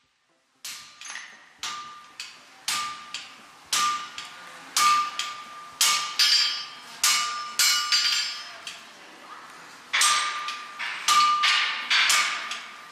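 Blacksmith's hand hammer striking iron on an anvil, about two blows a second, each with a short metallic ring. The blows pause for about a second and a half past the middle, then resume.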